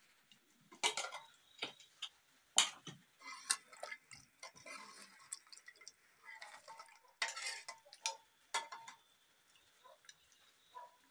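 Metal spoon and steel ladle clinking and scraping against metal pots, a pressure cooker and plates while rice and curry are served: a string of irregular clinks and taps, some ringing briefly.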